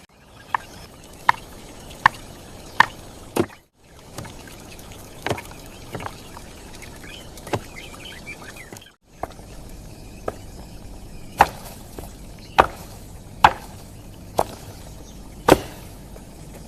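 Knife chopping on a cutting board: single sharp strikes, roughly one every second, over a steady low background hiss.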